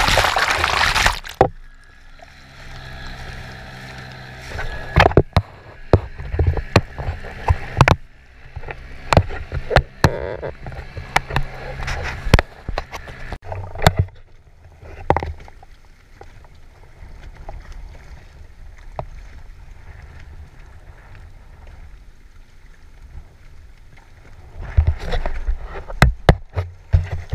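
Sea water rushing and splashing over the camera for the first second or so, then water lapping against a small plastic paddled boat, with scattered sharp knocks and taps on the hull that bunch together in the middle and again near the end.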